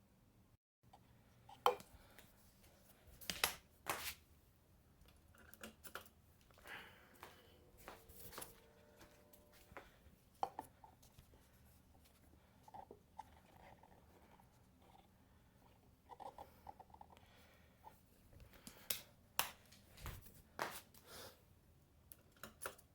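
Scattered faint clicks and knocks from handling, irregularly spaced, over a faint steady low hum.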